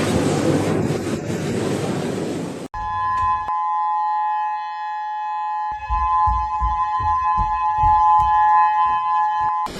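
A loud rushing noise that cuts off abruptly, followed by a warning siren holding a steady two-pitched tone. Low thuds sound under the siren from about six seconds in.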